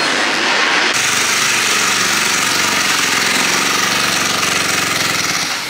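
Dirt bike engines running loud amid stadium noise. After a change about a second in, the sound turns into a single Kawasaki race bike's engine running close by with a rapid, even pulsing beat.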